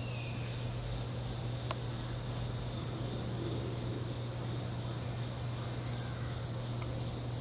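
Steady high-pitched insect drone in summer woods, over a constant low hum, with a single sharp click a little under two seconds in.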